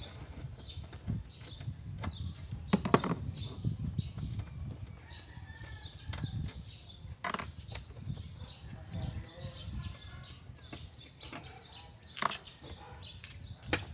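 A few sharp clicks and knocks of a hand socket wrench working the 10mm bolts of the engine-bay cover, the loudest about three seconds in, over a low background hum.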